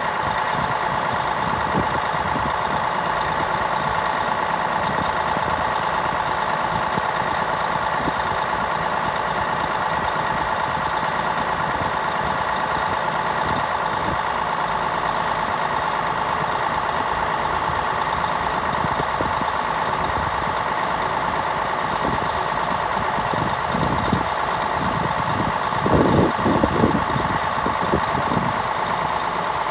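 Heavy boom crane truck's diesel engine running steadily while the crane hoists a load, with a short cluster of low knocks near the end.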